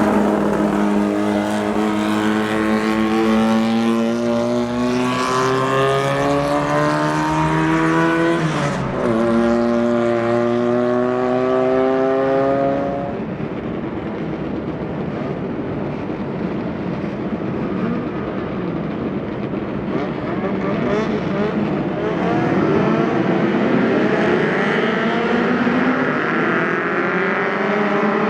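Racing car engine accelerating hard at full throttle, its pitch climbing, with an upshift about nine seconds in. It then pulls away and fades into a rougher engine noise, and another car's engine rises in pitch as it comes closer near the end.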